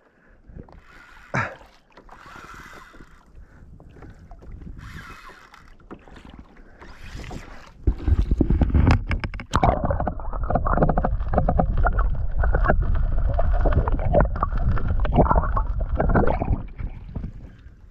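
Water sloshing and splashing beside a fishing kayak as a hooked tarpon thrashes at the surface, loud and muffled from about eight seconds in and easing off near the end.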